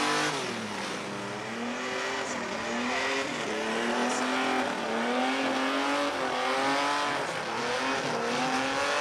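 Drag-race car doing a burnout at the start line: the engine revs up and down again and again over spinning, squealing tyres.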